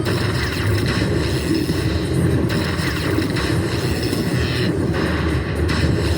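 Casino floor din from the slot machines: a steady low rumble under a wash of machine sounds, with higher electronic tones switching on and off every second or so.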